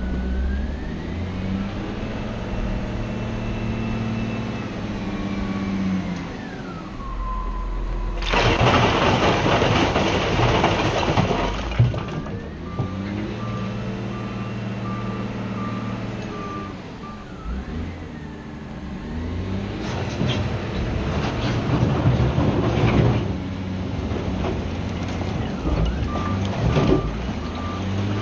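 Cat 966G wheel loader's diesel engine revving up and down under load, with a whine that rises and falls in pitch. About a third of the way in, rock crashes and rattles for a few seconds. A reversing alarm beeps steadily twice, once just after the crash and again near the end.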